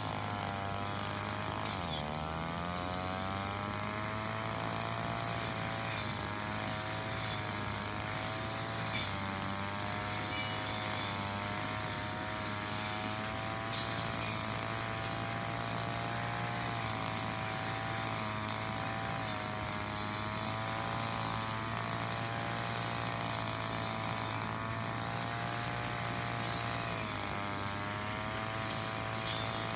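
Brush cutter running at full speed with a high buzzing whine; its pitch dips briefly as the blade is loaded about two seconds in and again near the end. A few sharp clinks stand out over it.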